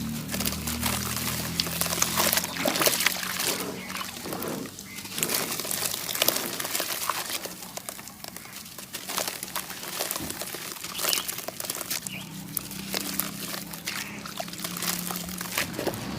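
Lumps of sand cement crumbling and crackling in water, with wet sloshing and many irregular crunches. A low drone sits underneath at the start and returns near the end.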